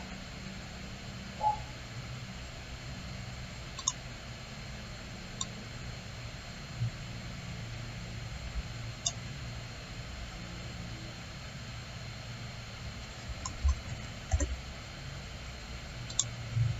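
Scattered single clicks of a computer mouse, about half a dozen spread a few seconds apart, over a steady low hum.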